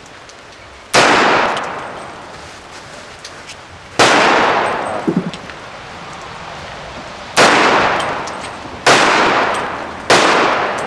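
Five gunshots, irregularly spaced, each a sharp crack followed by a long echoing decay. The first comes about a second in and the last three follow close together near the end.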